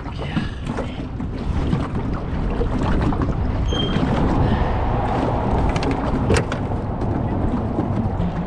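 Wind rumbling on the microphone, with scattered knocks and clicks of handling in a boat. There is a brief high tone a little under four seconds in and one sharper click about six seconds in.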